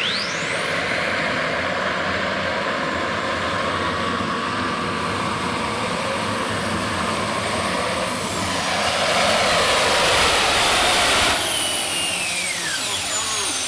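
Turbine-engined pulling tractor running at full power under load, a high whine climbing sharply at the start over a loud, steady jet roar. The roar swells about three-quarters through, then drops suddenly as the power is cut, and the turbines wind down with falling whines.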